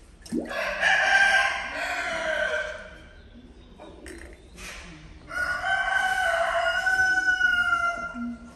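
A rooster crowing twice, each crow lasting two to three seconds; the second ends on a long held note.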